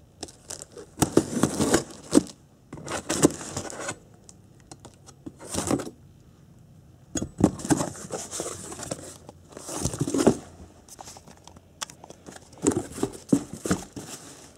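Packing tape on a cardboard box being slit with a knife and torn, then the box flaps pulled open and handled. The sounds come in irregular bursts of scraping, tearing and rustling with short pauses between them.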